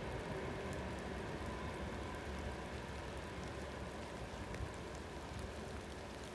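Steady hiss of rain, with the low rumble of a freight train of empty tank cars passing along the far side of the river, slowly fading.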